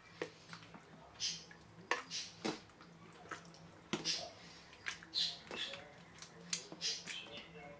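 Wet squelching and slopping as a glass jar is scooped through green peppers in tomato sauce and filled, with irregular clicks of the glass and a spoon among the peppers.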